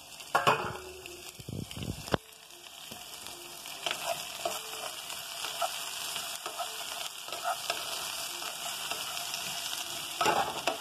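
Diced zucchini sizzling in olive oil in a skillet, with a spatula stirring the pieces and scraping and tapping the pan. There are a few knocks in the first two seconds, ending in a sharp click, and a louder run of scraping near the end.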